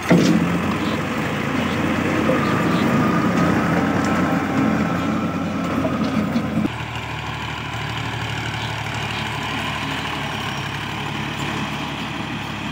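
Al-Ghazi tractor's diesel engine running under load while its PTO-driven rotavator churns through dry soil, loud and close at first. About two-thirds of the way through, the sound switches abruptly to a quieter, steadier engine drone.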